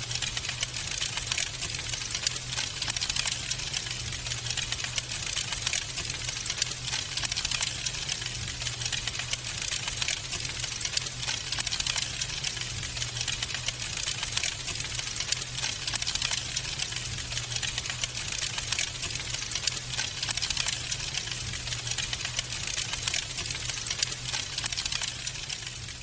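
Wood fire crackling: a dense, steady run of small pops and snaps over a low steady hum.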